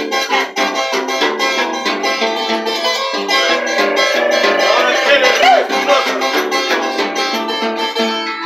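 Andean (Peruvian) harp being played: quick plucked melody notes over a repeating bass line.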